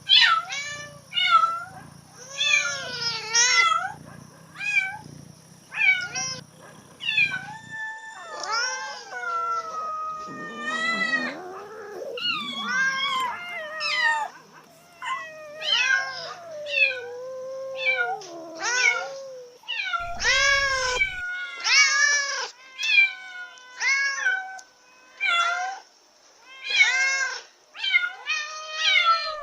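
Domestic cats in heat calling over and over. The calls come one to two a second, some short meows and some longer wavering yowls that bend up and down in pitch.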